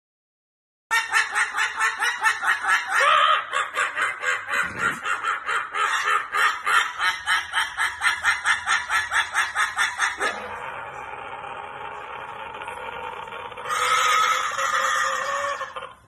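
A bird calling in a fast run of short, repeated clucking notes, about four or five a second, starting about a second in. It then settles into a steadier, quieter call and grows louder again near the end.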